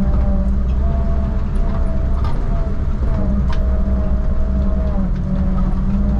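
1952 Willys Wagon under way: a steady drone of engine and road noise with a faint whine that drifts slightly in pitch, and scattered light rattles.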